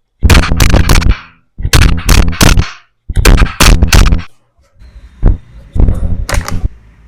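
Sharp percussive knocks, in three quick bursts of several strokes each, then a few fainter single knocks near the end.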